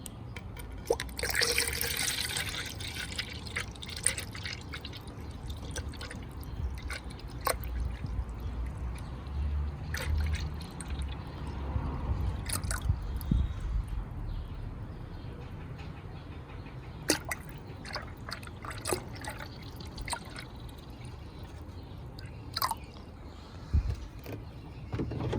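Coolant being poured into a spill-proof radiator filling funnel, trickling and dripping, with the pour strongest about a second in. Scattered sharp clicks and knocks of handling are heard throughout.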